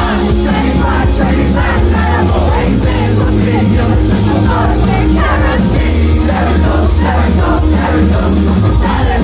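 A live rock band playing loud: steady drums, a heavy bass and voices singing over the band.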